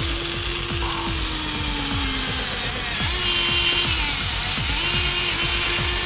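Electric motors and plastic gearboxes of a Huina remote-control excavator whining in spells of one to two seconds as the boom and bucket move, the pitch sagging slightly under load. Underneath runs background music with a quick steady beat.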